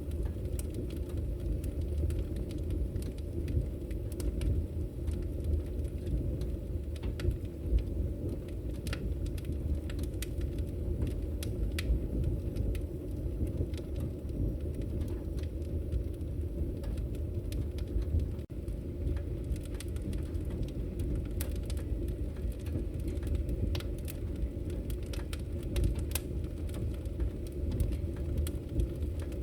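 Wood fire burning in a fireplace: a steady low rumble with frequent irregular crackles and pops.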